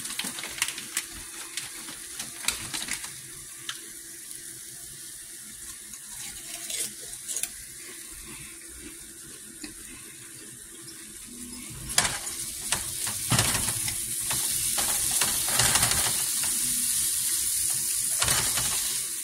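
Chicken sizzling in oil in a frying pan while a silicone spatula stirs it, with scattered light scrapes and taps. The sizzle grows louder about twelve seconds in.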